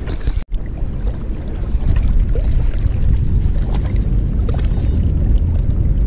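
Wind rumbling on the microphone over water lapping against the rocky shore, a steady low rumble that cuts out for an instant about half a second in.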